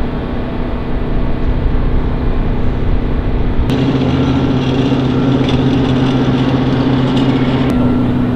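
F-16D fighter jet's engine running with a steady low drone and hum. A little under halfway through, the hum grows stronger and a lower steady tone joins it.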